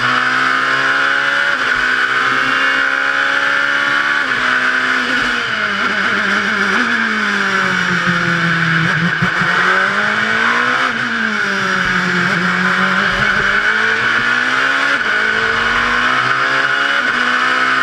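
LMP2 prototype race car's engine heard from the cockpit, revving up through two upshifts, then falling in pitch as the car brakes and shifts down to first gear for a slow corner, and climbing again through the upshifts on the way out. A steady high rushing noise runs under the engine throughout.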